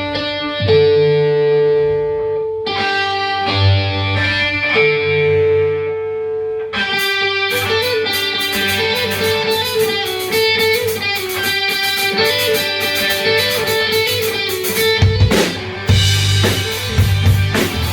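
Live rock band at a sound check: an electric guitar plays held chords, then a drum kit comes in about seven seconds in and the band plays on together, the guitar picking out a moving melody.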